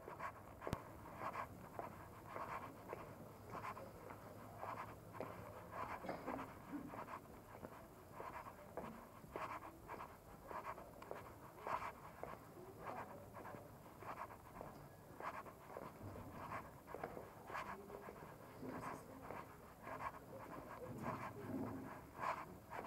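Footsteps on cobblestone paving at an even walking pace, about two soft steps a second, over faint street background.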